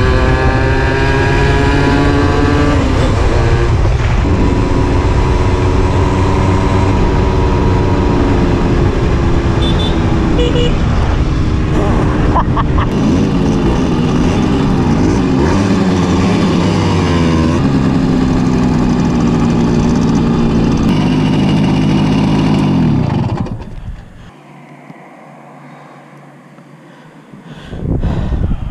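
Simson moped's single-cylinder two-stroke engine running under way, its pitch rising and falling as it revs and shifts gear. About 23 seconds in the engine sound stops abruptly, leaving a much quieter stretch.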